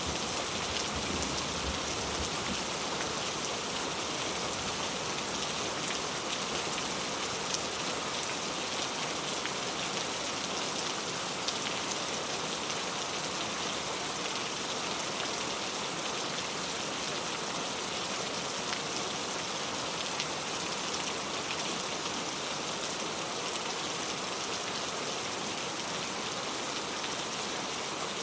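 Steady rain falling, an even hiss of many raindrops with faint scattered individual drops.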